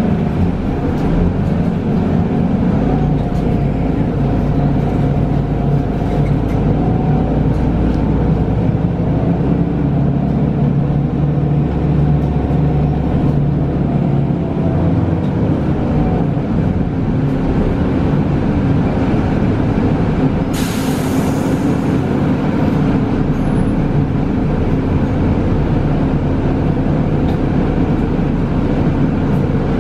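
Inside a Mercedes-Benz Citaro G articulated bus under way, its natural-gas engine and ZF automatic gearbox running with a steady drone whose pitch shifts in the first half as it pulls away and changes gear. About two-thirds of the way in there is a short hiss of released compressed air.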